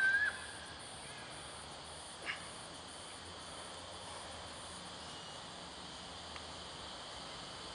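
Faint outdoor ambience with a steady high insect drone. A held whistled call fades out at the very start, and a single sharp click comes about two seconds in.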